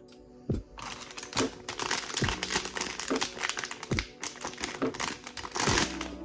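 Packaging being crinkled and handled, a dense run of crackles starting about a second in, over background music with a soft beat.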